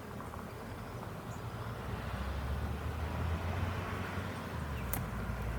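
Honeybees humming around an opened hive, under a low rumble that grows louder about two seconds in, with a single sharp click near the end.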